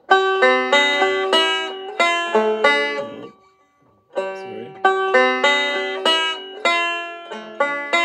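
Five-string banjo fingerpicked, a quick melodic phrase of plucked notes. It breaks off about three seconds in and starts again about a second later.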